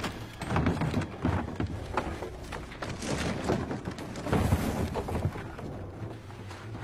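Wooden knocks and thuds, several in irregular succession, as the planks of a hatch in a large wooden horse are pushed and shifted open.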